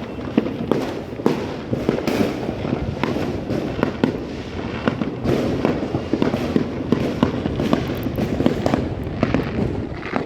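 Many fireworks and firecrackers going off all around at once: a dense, unbroken barrage of overlapping bangs and crackles, several reports a second.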